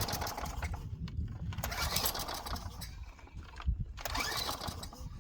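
Small engine of a Craftsman wheeled string trimmer being pull-started, catching and sputtering in three short bursts of about a second each. It fires briefly on sprayed starting fluid but won't keep running on its own fuel, which the owner puts down to a dirty carburettor.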